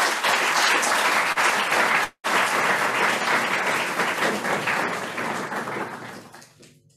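Audience applauding at the end of a lecture, with a sudden break lasting a split second about two seconds in, then dying away over the last couple of seconds.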